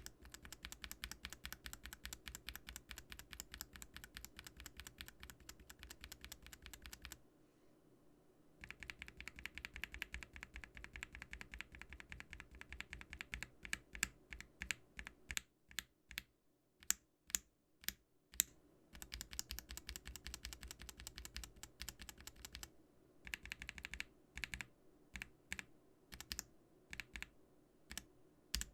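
Mechanical keyboard fitted with Gateron Black Ink V2 linear switches being typed on in a sound test comparing stock and lubed switches. Runs of fast typing are broken by short pauses. Around the middle comes a string of separate, louder single keystrokes, roughly two a second. The lubed switches bottom out softly, without scratchiness or spring ping.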